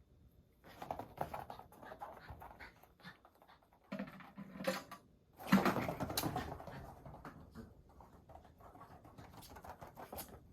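A dog playing with a ball on its own: irregular taps, knocks and scrabbling of paws and ball, with the loudest flurry about halfway through.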